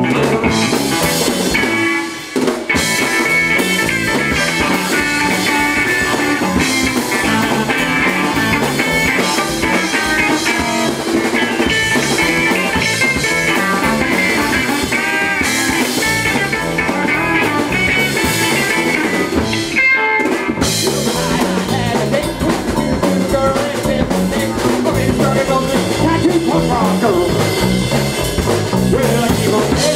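Punk rock band playing live: electric guitar and drum kit, with no vocals picked up. The band drops out for a moment about two seconds in, and there is another brief break around twenty seconds in.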